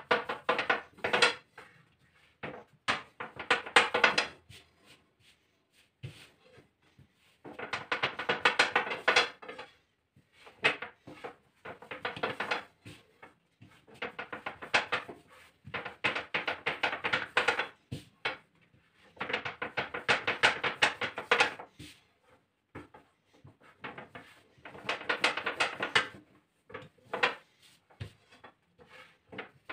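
Long thin wooden rolling pin (oklava) rolling out dough on a countertop: rapid runs of clattering clicks and knocks, in bursts of a second or two with short pauses between.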